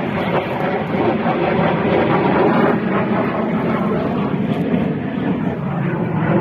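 Military aircraft flying overhead: a loud, steady engine noise that does not let up.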